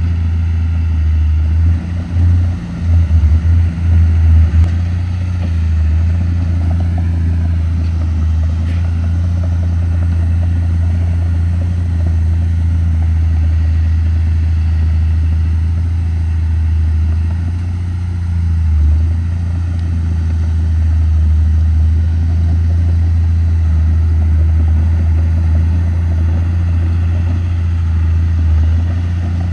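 Komatsu D31P bulldozer's diesel engine running under working load: a steady low drone, with a few quick surges in level about two to four seconds in.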